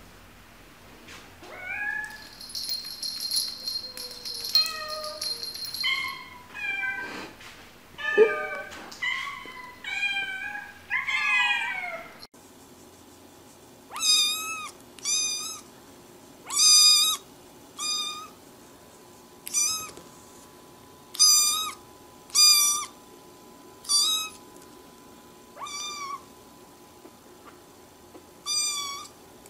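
Cats meowing, a run of varied calls, some gliding up or down in pitch. After about twelve seconds a kitten takes over with short, repeated meows, roughly one every second and a half.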